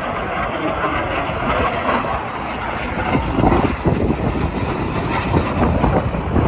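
Jet noise from the Red Arrows' BAE Hawk T1 jets flying past, a steady rushing sound that grows louder about halfway through, with gusty wind buffeting the microphone.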